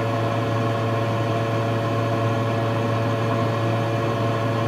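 Steady low machine hum with a few constant tones above it, even and unchanging throughout.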